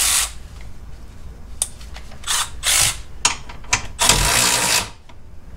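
Cordless electric ratchet running in a few short bursts and then one longer run near the end, with sharp clicks in between, as it works a bolt loose in a car's rear suspension.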